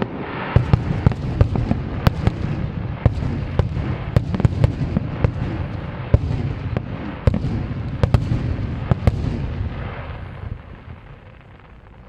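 Fireworks display: a dense barrage of shell bursts and crackling, with sharp bangs several times a second over a steady rumble, dying away about ten seconds in.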